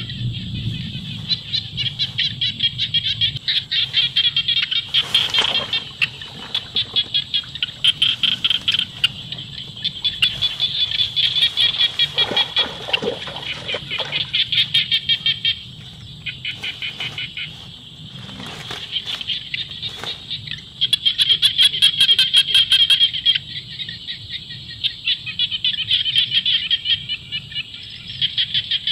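A chorus of frogs calling in fast pulsing trains that come in bursts with short breaks between them.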